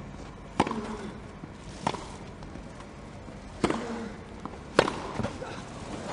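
Tennis rally on a grass court: four sharp racket strikes on the ball, a little over a second apart, the last one the loudest.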